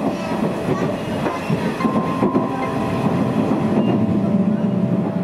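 Nishitetsu electric commuter train running along the line, heard from inside the passenger car: a steady rumble of wheels on rail, with a thin whine that comes and goes.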